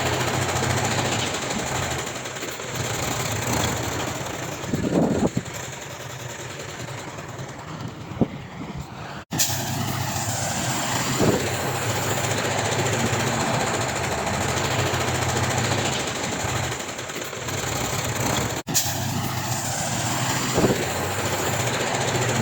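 Heavy diesel earthmoving machinery running steadily, a low engine drone with occasional short clanks. The sound drops out for an instant twice, at about nine seconds and nineteen seconds.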